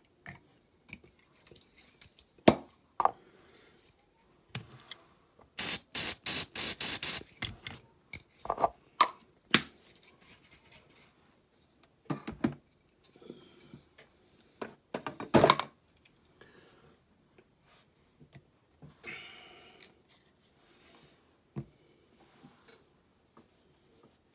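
Small die-cast model parts and tools handled on a workbench while doors are being glued on: scattered clicks and taps, a quick run of sharp clicks lasting about a second and a half around six seconds in, and a louder knock around the middle.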